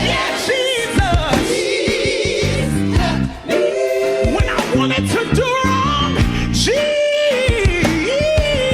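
Gospel singing with band accompaniment: a lead voice holding and bending long notes over bass and drums.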